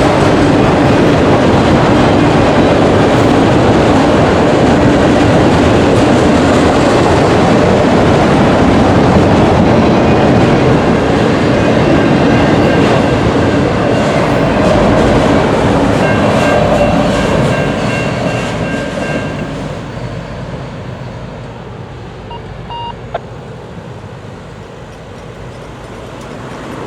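Freight cars of a long manifest train rolling past at close range, steel wheels running over the rails. The noise stays loud and steady, then fades away about two-thirds of the way through as the end of the train goes by and recedes.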